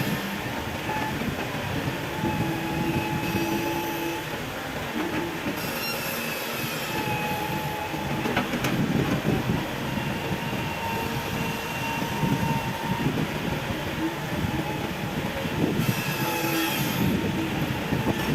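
Hitachi EX200 hydraulic excavator working under load as it digs and loads soil: the diesel engine runs with a rumbling, uneven clatter, and short squealing whines come and go every few seconds, growing heavier in the second half.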